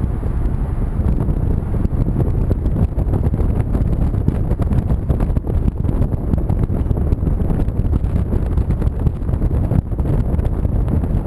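Strong wind buffeting the microphone: a loud, gusty low rumble.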